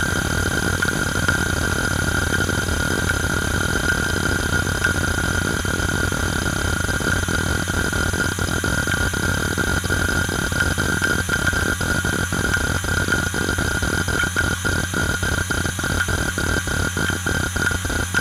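IBM Travelstar 25GS DARA-225000, a five-platter 2.5-inch laptop hard drive, running a read/write benchmark. Its platters spin at 5411 rpm with a steady hum and a high whine. The heads seek continuously with a dense chattering that breaks up into rapid, separate clicks in the second half.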